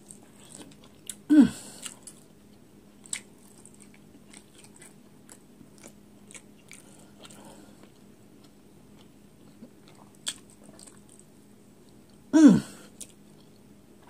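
A person chewing a bite of hot dog, with small wet mouth clicks and smacks throughout. Twice, about a second and a half in and near the end, comes a short low voiced sound from the eater that falls in pitch.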